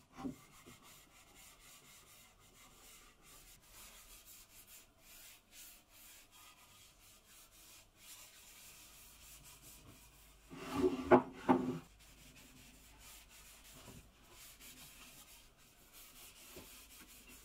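Cloth rubbing clear paste wax into the bare pine surfaces of a wooden step stool, a soft steady wiping. About eleven seconds in, a brief louder burst of wooden knocks and scraping.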